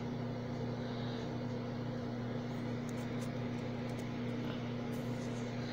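Steady low electrical hum, with a few faint small clicks in the second half from the opened phone being handled with a plastic pry pick.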